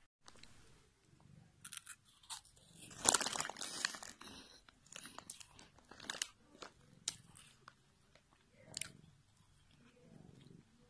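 A cat crunching and chewing a crunchy snack. The crunches come in irregular bursts and are loudest about three to four seconds in.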